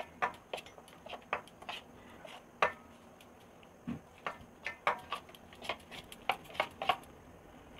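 Metal spoon stirring thick mung dal batter in a stainless steel bowl, clinking and knocking against the bowl in irregular taps, one louder knock about two and a half seconds in and a quicker run of clinks later on.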